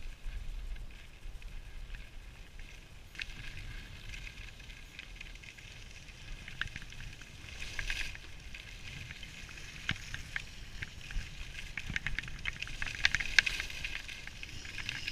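Sliding down a groomed ski run: a steady scraping hiss of edges on packed snow, with many crackling ticks that grow thicker near the end. Low wind rumble on the microphone underneath.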